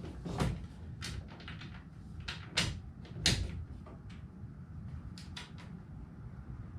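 Bolt and nut being fitted to a DeWalt shelf drawer kit: a bolt is pushed through a hole and a nut is put on the back. The hardware and drawer parts clatter in a series of irregular sharp clicks and knocks, with a quick cluster of taps late on.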